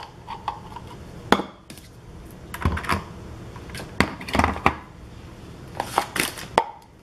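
Irregular sharp clicks and knocks of a plastic vegetable dicing chopper and kitchen utensils being handled on a counter, coming in small clusters.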